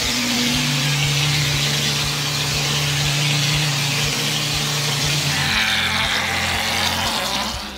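Steady hiss of compressed air from a MIXXMANN S8 plastering machine's spray gun as it shoots mortar onto a brick wall. The hiss cuts off near the end. Background music with a steady beat plays under it.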